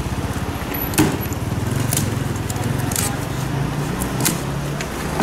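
Street traffic with a vehicle engine running nearby, its low drone a little higher near the end. Four sharp clicks and knocks come about a second apart as the cardboard motorcycle crate on its pallet is worked at by hand.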